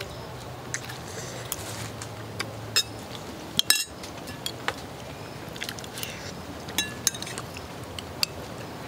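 Steel spoons clinking against ceramic soup bowls: about a dozen scattered sharp clinks, each with a brief ring, the loudest a quick cluster a little over a third of the way in.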